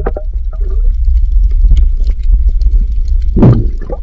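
Underwater sound picked up by a submerged camera: a loud, steady low rumble of moving water with scattered faint clicks, and one brief louder muffled burst about three and a half seconds in.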